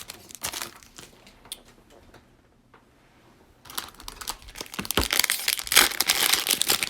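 Plastic wrapper of a Prizm football cello pack crinkling as it is handled and torn open: a few light clicks at first, then a louder, dense crackling in the second half.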